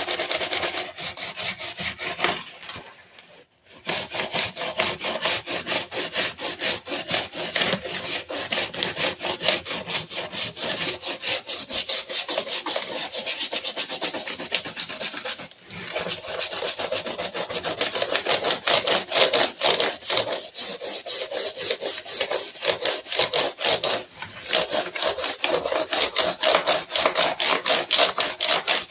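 Rapid back-and-forth scrubbing on a Dell computer keyboard during cleaning, in quick even strokes that stop briefly three times and then start again.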